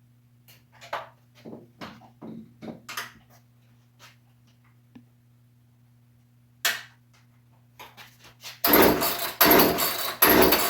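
Scattered clicks and knocks of workshop handling, then loud rough scraping noise in three or so bursts for about two seconds near the end, over a steady low hum.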